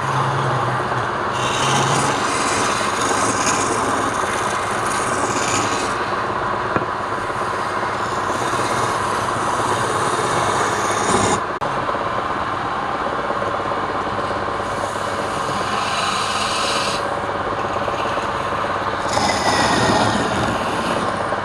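A power tool working wood: a steady whirring, rasping noise of the tool cutting or sanding, with a brief drop about eleven seconds in.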